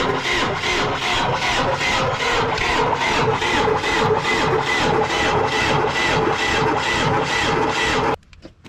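John Deere tractor's diesel engine cranking on its electric starter to prime the fuel system after a clogged fuel filter. It pulses steadily about three times a second over the starter's whine, then cuts off suddenly about eight seconds in without the engine catching.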